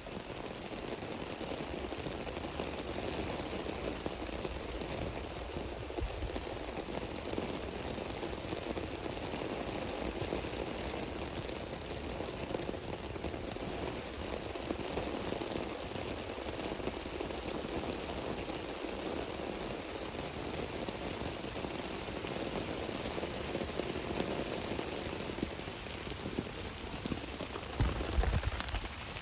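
Steady rain falling in woodland, an even hiss of drops, with a few low thumps near the end.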